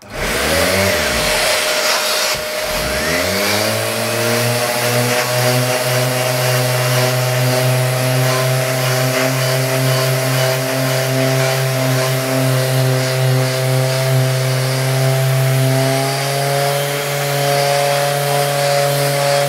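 Bosch random orbital (dual action) sander with 120-grit disc, hooked up to a dust-extraction vacuum, sanding down hardened filler on MDF battens. It spins up at the start, dips briefly about two seconds in, then runs steadily.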